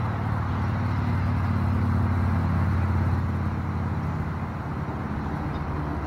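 Steady low hum of passing road traffic, swelling a second or two in and then easing off.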